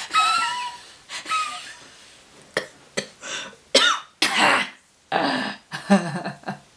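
A woman laughing in several different styles, one after another: a high-pitched laugh at the start, then a string of short bursts of laughter with brief pauses between them.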